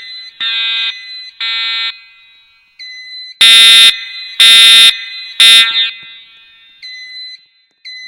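EST voice-evacuation fire alarm system sounding its temporal-three evacuation tone: buzzy horn-like tones about half a second long, each group of three followed by a pause. The last two tones of one group come first, then about three seconds in a full group of three sounds, louder. Fainter thin high beeps sound between the groups.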